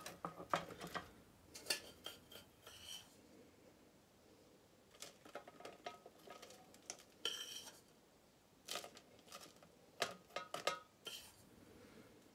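Metal spoon scraping and clinking against a stainless steel saucepan as crushed digestive-biscuit base is scooped out, in irregular short scrapes and taps with brief pauses.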